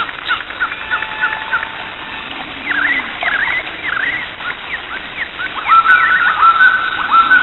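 A chorus of animal calls: many short chirping and squawking calls, some sliding up and down in pitch, repeating quickly and growing louder and denser in the second half.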